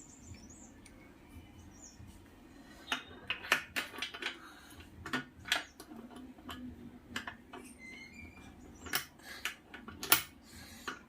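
Adjustable wrench working on a bicycle suspension fork's adjuster during tightening: irregular metal clinks and taps. A cluster comes a few seconds in, and the loudest clinks come about nine and ten seconds in.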